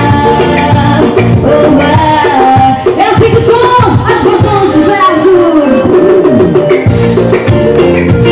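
Loud live band music, Latin American in style, with a woman singing into a microphone over bass guitar, keyboards and a steady beat.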